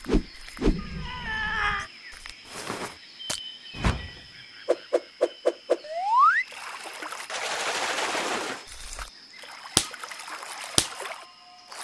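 A string of added cartoon sound effects: sharp clicks, a wavering animal-like call, five quick pips followed by a rising glide, then a hissing swoosh of about two seconds and more clicks.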